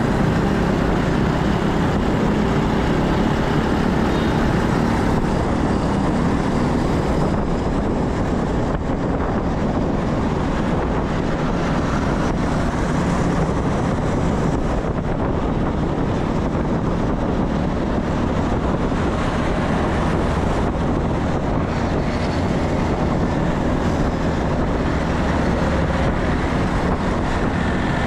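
Steady noise of riding a motor scooter in traffic: wind rushing over the microphone together with the scooter's engine and road noise, evenly throughout.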